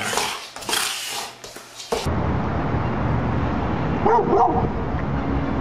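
Two large black dogs scuffling in rough play on a wooden floor. The sound then switches suddenly to a steady outdoor rumble, and a dog gives a short run of barks about four seconds in.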